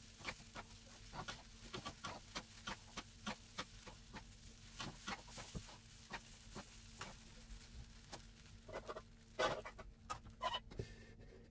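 Wooden chopsticks and a metal spatula tossing rice vermicelli in a wok, clicking and scraping against the pan in quick irregular taps, with a louder clatter about nine seconds in. A faint steady hum sits underneath.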